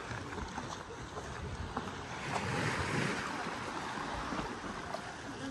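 Wind noise buffeting the microphone, a steady rushing that swells for a second or so near the middle.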